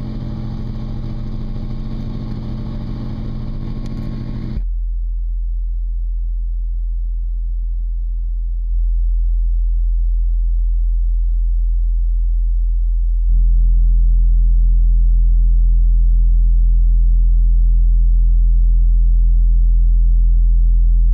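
A car subwoofer, a Digital Designs 9510 driven by two strapped Sundown SAZ-2500 amplifiers, playing a deep bass tone that is turned up in three steps. The first few seconds are a harsh buzz with many overtones, which cuts off abruptly as the deep, clean tone takes over and grows louder at each step.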